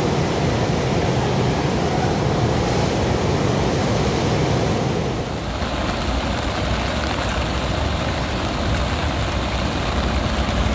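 Steady rush of fast-flowing floodwater in a swollen river, with a deep, rumbling body to the noise. About five seconds in the sound shifts slightly and becomes a little quieter.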